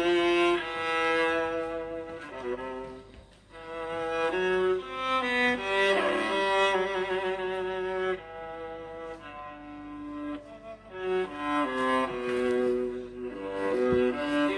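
Nokia 3120 classic ringtone playing: a polyphonic melody of held notes, in phrases with short breaks between them.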